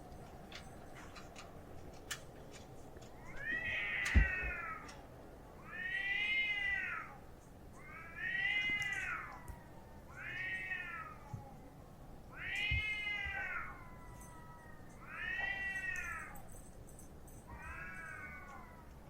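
Stray cat caterwauling in a fight with another cat: seven long, drawn-out yowls about two seconds apart, each rising and then falling in pitch. A sharp thump about four seconds in.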